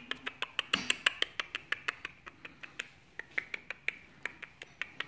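Rapid, evenly spaced sharp clicks, about six a second, with a brief rustle about a second in.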